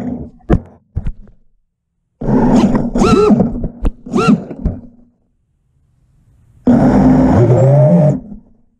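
FPV quadcopter's brushless motors revving in short bursts in crash-flip (turtle) mode, trying to flip the upturned drone free of tree branches. Two sharp knocks come about half a second and a second in. A steadier run of about a second and a half starts near the end and then cuts off.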